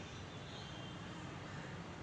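Steady outdoor background noise: a low rumble with a hiss above it and no distinct event.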